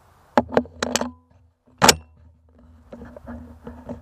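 Pointer Field Tek 4 semi-automatic 12-gauge shotgun being loaded and handled: four quick metallic clicks as a shell is worked into the gun, a single louder metal clack about two seconds in, then lighter handling clicks.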